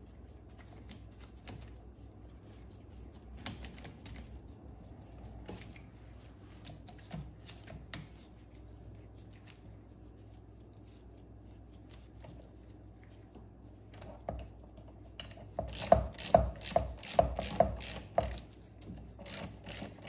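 Faint taps and handling of tools on the motor housing, then a socket ratchet clicking rapidly in two runs near the end as it backs out the 5/16-inch end-cap bolts of a trolling motor's housing.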